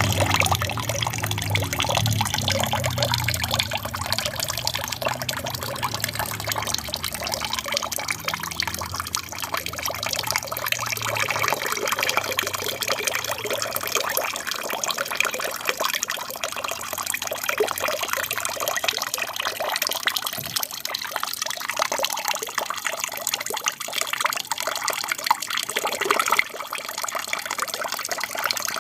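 Water trickling and splashing steadily from a small aquarium waterfall, with a low hum in the first half that fades out around the middle.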